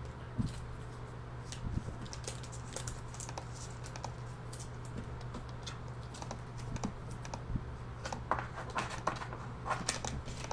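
Typing on a computer keyboard: irregular runs of key clicks, busier near the end, over a steady low hum.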